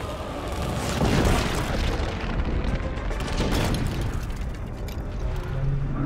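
Film sound effects of a blazing fireball crashing down: deep rumbling with two big booms, one about a second in and another past the middle, with music underneath.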